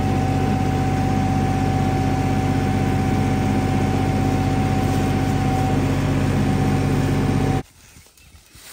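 Tractor engine idling steadily, heard from the operator's seat. It cuts off abruptly near the end, leaving faint footsteps in dry leaves.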